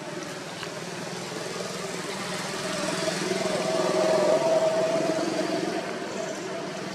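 A motor vehicle engine running with a steady hum. It grows louder toward the middle and then eases off a little.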